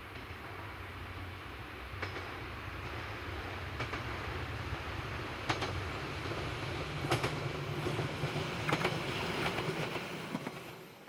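Kyoto Tango Railway 'Tango Explorer' diesel train approaching and passing close by, its diesel engine running with a low drone that grows louder. From about five and a half seconds in, its wheels click over rail joints, often in pairs. The sound fades out at the end.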